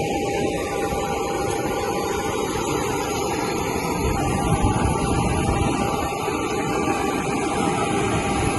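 Aircraft engine running steadily: a constant loud rush of noise with a steady high whine.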